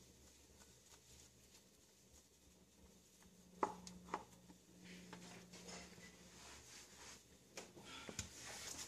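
Near silence with a faint low hum, broken by two sharp clicks about three and a half and four seconds in, then faint scattered ticks toward the end.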